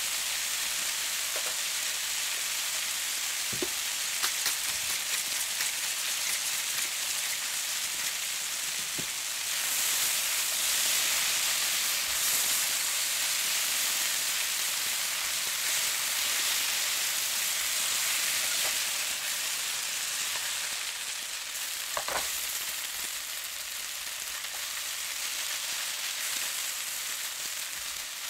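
Food sizzling in a frying pan: a steady hiss that swells a little about ten seconds in, with a few light clicks.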